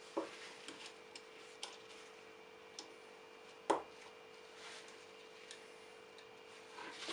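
Faint, scattered clicks and ticks of the restored Rolcut secateurs being handled, with one louder click about three and a half seconds in, over a steady low hum.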